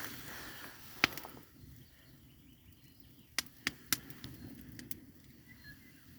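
Sharp knocks of a blade chopping into wood: one loud knock about a second in, then three quicker ones about two seconds later.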